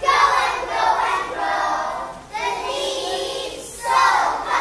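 A group of young children singing together in unison, in held phrases about a second long.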